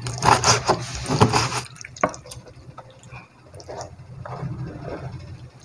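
Large kitchen knife chopping raw chicken thigh on a plastic cutting board, a quick run of chops for about the first second and a half. Later the cut pieces are scraped and slid off the board into a plate, a soft rubbing sound.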